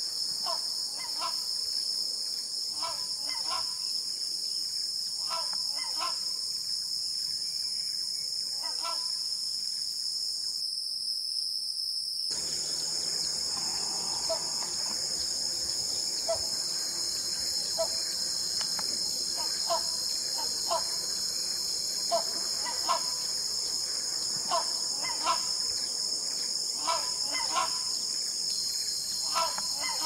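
Forest ambience: a steady high-pitched insect drone, with short bird calls repeating every second or two and pausing briefly midway.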